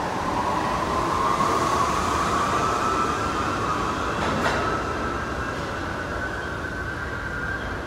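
R68 subway train accelerating, its traction motor whine rising steadily in pitch and levelling off near the end, over rail and wheel noise. A brief clank comes about halfway through.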